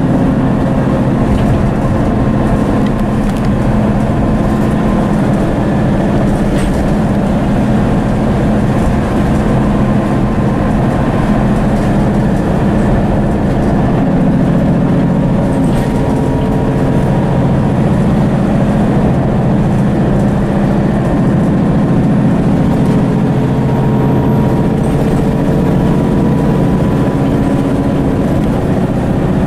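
Mercedes-Benz O530 Citaro bus driving along, heard inside its cabin: the Daimler OM906hLA six-cylinder diesel and ZF automatic gearbox running steadily under the passenger noise of road and body rumble.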